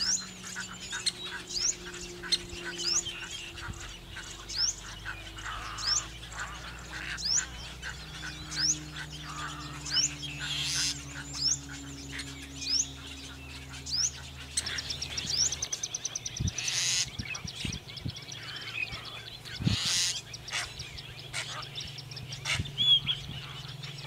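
Asian pied starlings calling: a sharp, high 'beep beep' note repeated about every three-quarters of a second, the starlings' imitation of a woodpecker's call. Louder harsh calls break in a few times in the second half.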